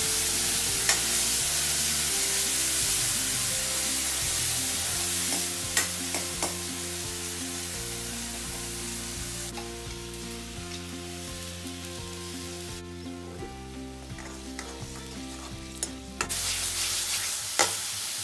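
Ground masala paste sizzling as it fries in hot oil in a steel kadhai, with a spoon stirring it and clinking against the pan a few times. The sizzle is strongest at first, dies down through the middle and picks up again near the end. Soft background music plays underneath.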